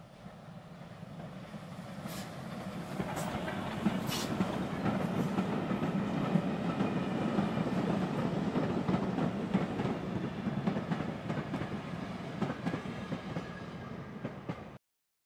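A steam train passes: a small saddle-tank locomotive hauling vintage wooden-bodied coaches. The rumble of the running wheels builds over the first few seconds, with a few sharp clicks, then stays steady until it cuts off suddenly near the end.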